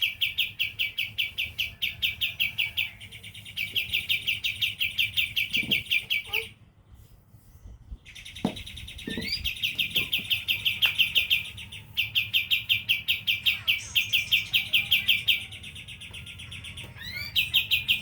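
A kapas tembak songbird singing its rapid-fire 'tembakan' song: long runs of fast, evenly repeated high notes in bouts of a few seconds, with short pauses between and one near-silent break about six and a half seconds in.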